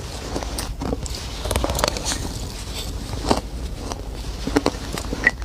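Close-miked crunching of frozen freezer ice being bitten and chewed: a dense run of irregular crackles and crunches, with a few sharper bites, and a brief squeak of hard ice near the end.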